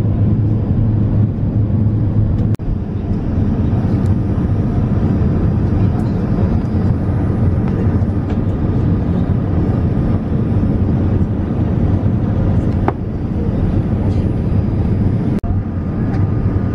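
Jet airliner cabin noise in flight: the steady low rush and hum of the engines and airflow. It drops out briefly a few times.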